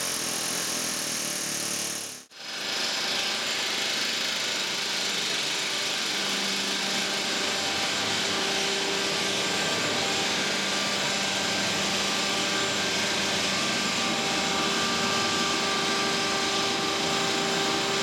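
A pneumatic air hammer chattering against a riveted steel steam boiler, cut off sharply about two seconds in. After that comes a steady whirr of workshop machinery with a faint hum.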